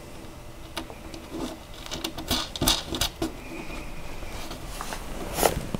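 Small scattered clicks, taps and scratches of hands screwing a nut and washer onto a bolt under a wooden panel, with the plastic-covered changing pad rustling. The handling noises bunch up between about two and three and a half seconds in, with one more near the end.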